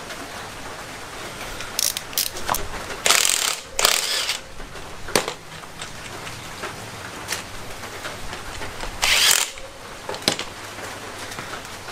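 Scattered metal clicks and a few short ratcheting rasps from a click-type torque wrench and its socket being handled and set up on a motorcycle's front axle nut.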